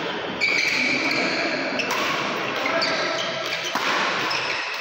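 Badminton rally in a large indoor hall: rackets striking the shuttlecock a few times, with players' shoes squeaking on the synthetic court mat.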